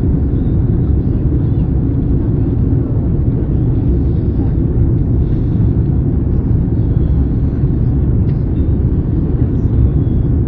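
Cabin noise inside an Airbus A310 on approach with its flaps extended: a steady, low rumble of the engines and airflow over the airframe.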